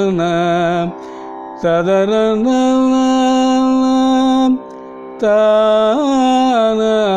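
A man singing Carnatic swaras, the sa-ri-ma-pa note syllables of a raga scale, in long held notes with slides between them. He sings three phrases with short breaks, and a fainter steady tone carries on in the breaks.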